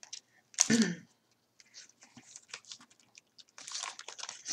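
Plastic packaging crinkling and rustling in short, scattered crackles as bagged diamond-painting tools are handled, busier near the end.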